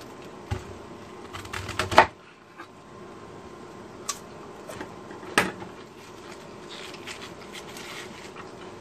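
A chef's knife slicing through a cabbage and knocking on a plastic cutting board: a quick run of cuts ending in a loud knock about two seconds in, then a few separate knocks. Near the end, a crisp rustling as cabbage leaves are handled and pulled apart.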